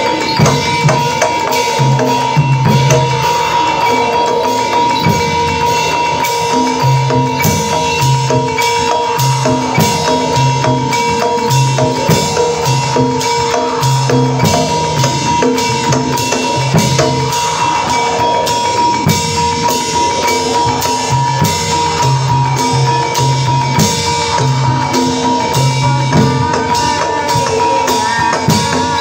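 Javanese gamelan music for a barongan dance: fast, driving drumming with clanging metal percussion, a repeating low pulse, and a steady high tone underneath.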